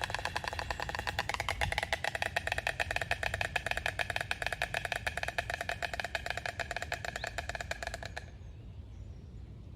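White stork bill-clattering: a rapid, even rattle of the bill snapping open and shut many times a second, which stops about eight seconds in.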